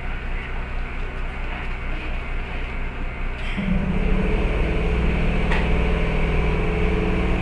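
Kintetsu 8600-series electric train heard from the cab: a steady hum, with a louder, even low drone setting in about halfway through, and a single click shortly after.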